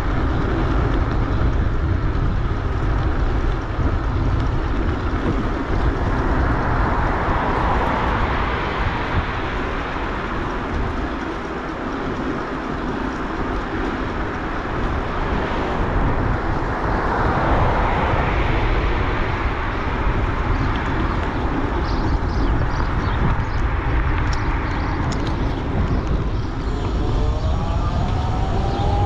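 Riding noise from a high-power electric bike: steady wind buffeting on the microphone and road rumble, with a rising whine near the end.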